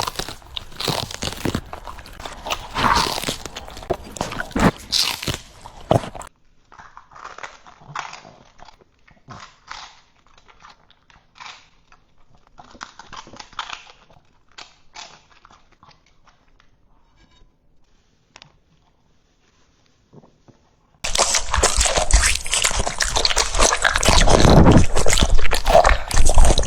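A French bulldog chewing crisp, crunchy food with rapid wet crunches. About six seconds in the crunching turns sparser and duller. After a brief near-silence, a much louder dense noise takes over for the last few seconds.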